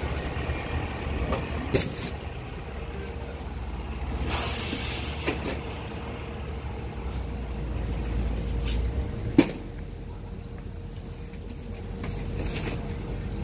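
Fire apparatus diesel engine idling with a steady low rumble that eases off about nine seconds in. A short air hiss comes about four and a half seconds in, and a sharp clack about nine seconds in.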